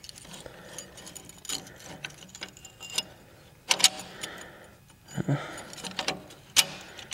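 Metal parts of a go-kart centrifugal clutch clinking and knocking as the clutch drum is worked onto the shoes and crankshaft and won't seat. The sharp clicks come irregularly, with two louder clacks, one about four seconds in and one near the end.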